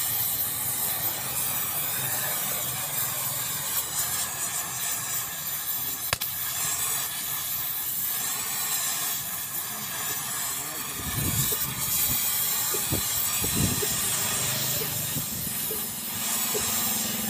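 Gas welding torch flame hissing steadily as it welds a motorcycle silencer pipe with a filler rod. A few low rumbles come in about two-thirds of the way through.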